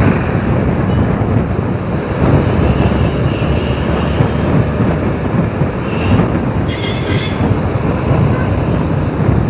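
Riding a TVS Apache motorcycle: steady wind buffeting on the microphone over engine and road noise.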